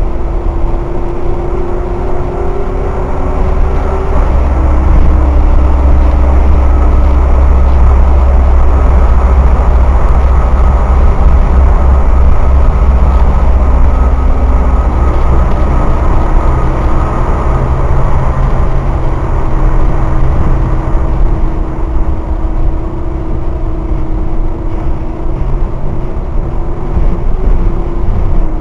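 Leyland Olympian double-decker bus with a Gardner 6LXCT six-cylinder turbo-diesel and a Voith DIWA automatic gearbox, under way with a heavy low rumble. A whining tone climbs over the first four seconds, then drops suddenly as the gearbox changes up. It jumps up again about fifteen seconds in and holds fairly steady.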